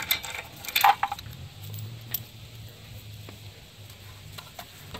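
Steel lug nuts clinking as they are spun off a wheel stud by hand and handled, with a sharp metallic clink about a second in, then a few faint ticks.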